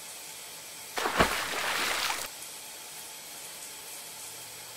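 A sudden thump about a second in, followed by about a second of loud rushing noise that cuts off sharply, over a steady faint hiss.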